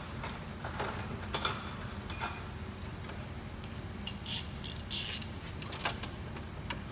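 Metal hand tools clinking as a socket and extension are handled. There are a few sharp clicks early on, then short scraping sounds midway, over a steady low hum.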